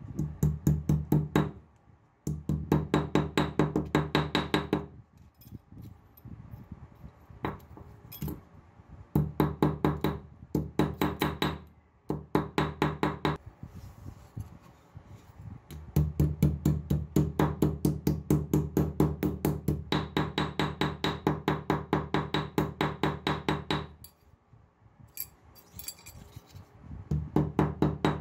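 Small hammer tapping a bent sheet-metal lamp bracket flat against a marble slab, hammering out its dents. The strikes come fast, about six a second, in runs of a few seconds with short pauses between, each with a bright metallic ring.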